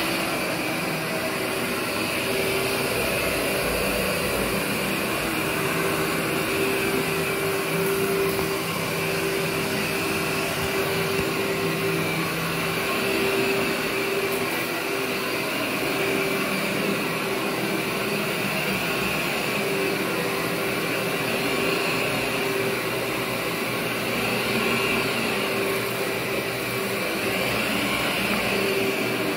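Workhorse upright vacuum cleaner running steadily with a constant motor tone while it is pushed over carpet.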